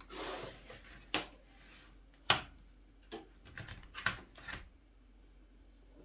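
Hands handling a screwdriver and an audio interface on a wooden desk: a brief rub, then a string of sharp clicks and knocks, the loudest a little over two seconds in.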